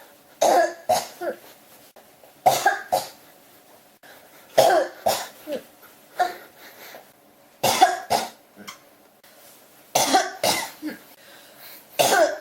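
A person coughing in a fit that won't stop: short groups of two to four hard coughs, coming again every couple of seconds.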